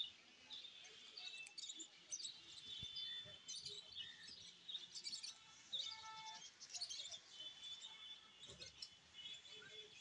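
Small caged birds chirping faintly, a continual run of short, high chirps and twitters from several birds overlapping.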